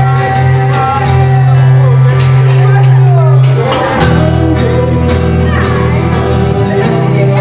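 Live acoustic rock song played on acoustic guitars with a sung vocal. The chord changes about halfway through.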